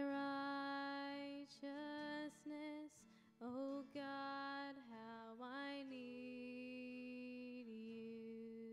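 A woman singing a slow worship song in long, sustained notes. The last phrase ends on a long held note that steps down to a lower one near the end.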